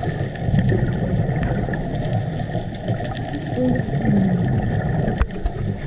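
Muffled underwater noise picked up by a GoPro in its waterproof housing: a steady low rumble that swells and eases, with a few short chirps and some sharp clicks near the end.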